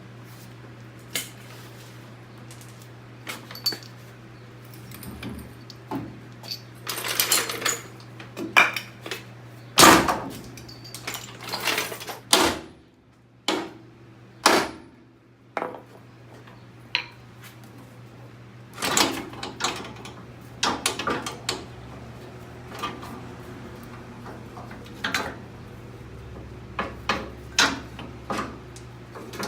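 Irregular metallic clanks and knocks of hand tools working on a Chevrolet Caprice's front suspension, the parts being knocked loose during lower ball joint and coil spring removal, over a steady low hum.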